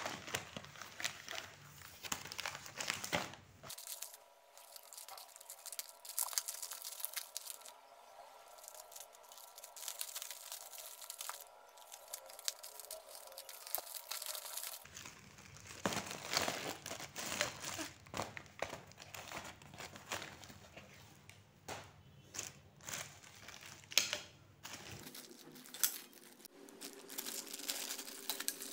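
Plastic packaging crinkling and tearing in irregular bursts as hands open a plastic courier mailer and handle the clear plastic bag inside.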